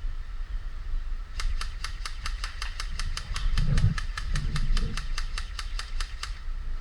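A fast, evenly spaced series of sharp mechanical clicks, about six a second, starts about a second and a half in and stops near the end. It sits over wind noise on the microphone and a low rumble, with a couple of dull thumps midway.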